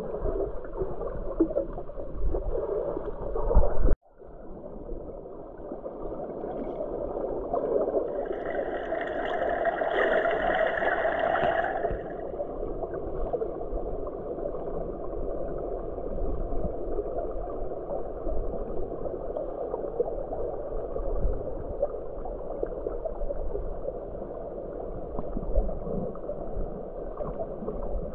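Muffled underwater water noise heard with the microphone submerged: a dull, steady rush with no high end. It drops out for an instant about four seconds in, and a brighter hiss joins in from about eight to twelve seconds.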